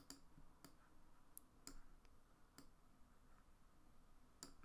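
Faint computer mouse clicks, about six scattered over a few seconds, against near-silent room tone.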